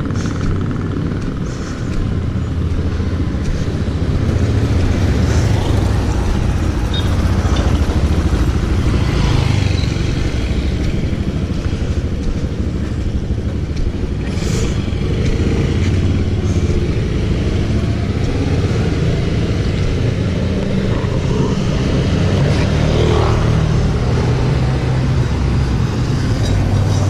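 Motorcycle engine running steadily and low without a break, with street traffic.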